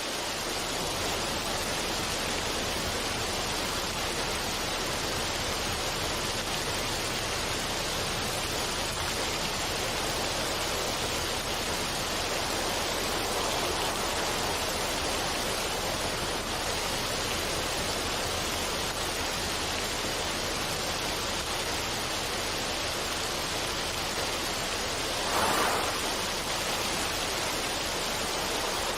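Steady rush of running water, with a brief louder surge near the end.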